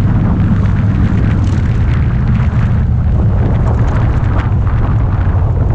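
Harley-Davidson Dyna Street Bob's V-twin engine running at a steady cruise, a deep even rumble with no revving, mixed with wind noise on the camera's microphone.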